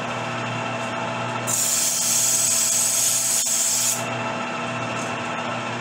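Metal lathe running with a steady motor hum. From about a second and a half to four seconds in, a hissing scrape as a high-speed steel threading tool takes a light pass on the spinning stainless steel barrel shank, a scratch cut to check the thread pitch.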